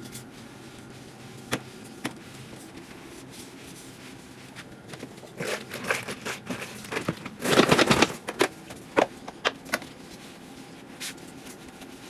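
Spin mop being worked on a wet floor and in a bucket of sudsy water: scattered clicks and knocks from the plastic mop head and handle, with a louder swishing, sloshing burst about seven and a half seconds in as the mop is plunged and worked in the bucket.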